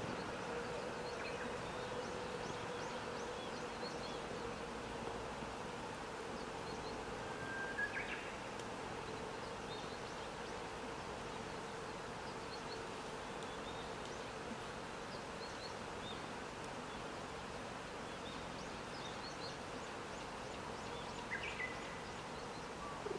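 Outdoor ambience: a steady insect buzz that fades out after about ten seconds, with two brief high chirps, one about eight seconds in and one near the end.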